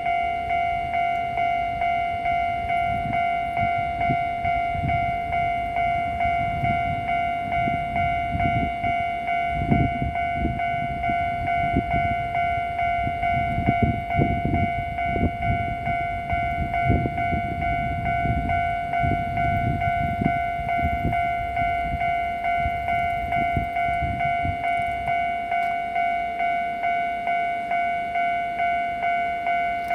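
Level-crossing warning bell ringing steadily with an even, repeating ding, while the Mowa 24 series track-inspection train passes over the crossing. The train's running noise comes in uneven rumbling bursts through the middle and dies away near the end, and the bell keeps ringing.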